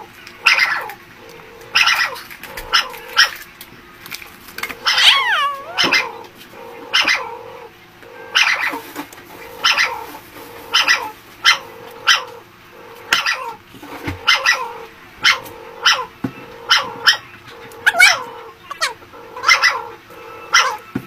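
A dog barking over and over, short barks about once a second, with one longer wavering yelp about five seconds in.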